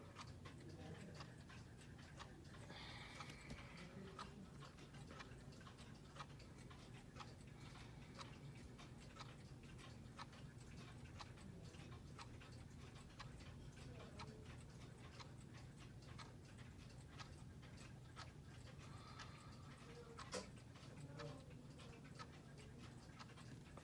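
Quartz battery clock ticking faintly and steadily, with one sharper click about twenty seconds in.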